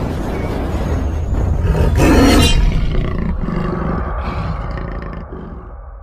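A big-cat roar sound effect, loud and deep-rumbling, swelling to its loudest about two seconds in and then fading away.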